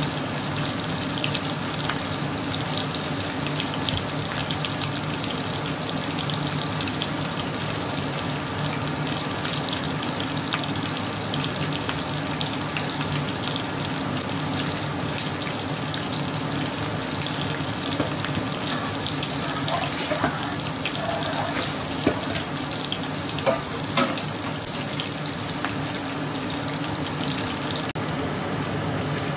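Pieces of hairtail fish frying in hot oil in a pan: a steady sizzle dotted with small crackles, with a few sharp knocks around two-thirds of the way through.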